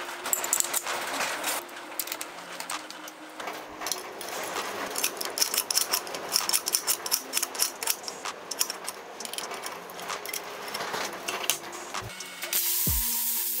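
Steel parts clinking and clicking as a welded steel guard and its slotted arm are handled and fitted together on a steel workbench, over faint background music. Near the end a loud steady hiss starts.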